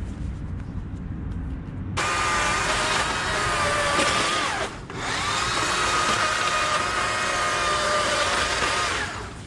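Stihl two-stroke chainsaw revved to full throttle about two seconds in, running high and steady; its pitch sags and it briefly drops off near the middle, then it revs up again and cuts back to low near the end.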